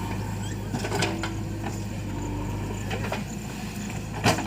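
Heavy diesel machinery engine running steadily, with a few light knocks and one sharp clank near the end, as from a loader bucket working mud.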